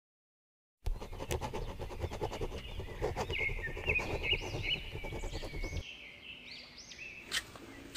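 Birds chirping in a run of short repeated rising-and-falling calls, over room noise with faint ticks and a low rumble; a single sharp click near the end.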